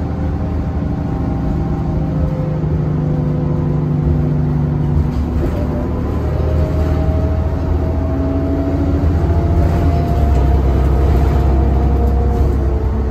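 Inside a moving Orion VII diesel city bus: the diesel engine and drivetrain running with a steady low drone, and a whine that rises slowly in pitch from about halfway through as the bus gathers speed. The low drone grows heavier near the end.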